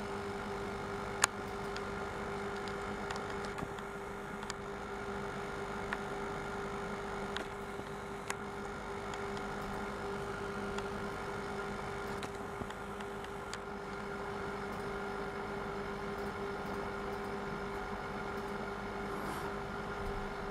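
Aquarium air pump running with a steady hum, pushing air through an air stone in a brine shrimp hatching bottle; a few faint ticks now and then.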